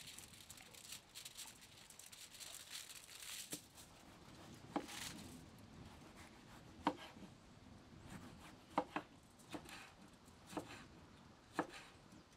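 A kitchen knife slicing a tomato and a chili pepper on a wooden cutting board, the blade knocking on the board at uneven intervals, roughly once a second. It is preceded by soft rustling of aluminium foil as sour cream is rubbed over a fish fillet.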